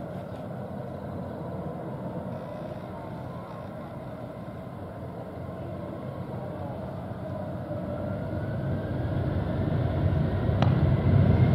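Turbofan engines of a J-AIR Embraer E190 regional jet running as it taxis: a steady whine and rumble that grows louder over the last few seconds, with a whine rising in pitch.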